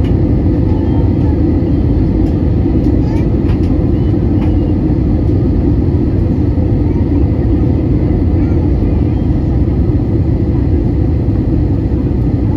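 Airbus A320 cabin noise on the landing approach, heard from a window seat beside the engine: a loud, steady roar of jet engine and airflow, heaviest in the low end, with a faint steady hum above it.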